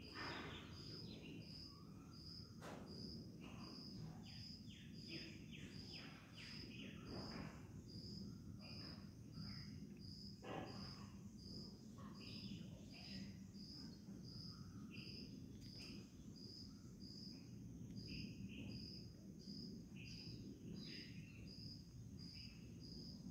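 A cricket chirping steadily, one short high chirp about every 0.7 seconds, faint over a low background rumble, with scattered faint higher chirps.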